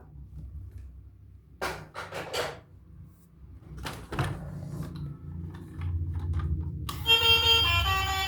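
Several knocks and clicks of plastic toy vehicles being handled over a low rumble. About seven seconds in, an electronic jingle of steady tones starts.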